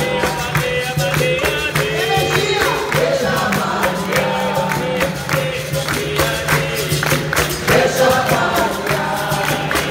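Live capoeira roda music: a berimbau holding a low twanging note that switches between two pitches, a pandeiro tambourine and steady handclaps, with a group singing over it.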